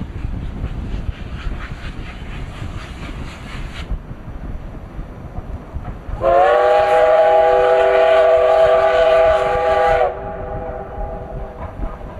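C11 steam locomotive sounding one long, steady whistle blast of about four seconds, starting about six seconds in, with its lower tones lingering briefly after. Before the whistle comes the locomotive's rhythmic exhaust chuffing, with wind rumbling on the microphone.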